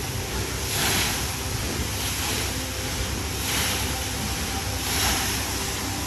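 Water cascading down the steep, curved, textured walls of a large man-made waterfall: a steady rushing that swells and eases every second or so.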